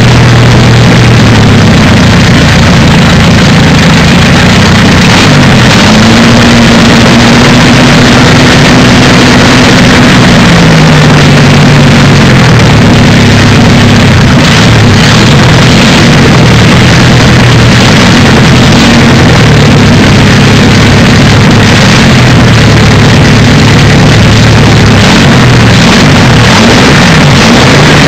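24-litre Napier Lion W12 aero engine of the Napier-Bentley running loud through open stub exhausts, revved while standing. Its speed climbs about five seconds in, holds, drops back, then rises and falls several more times.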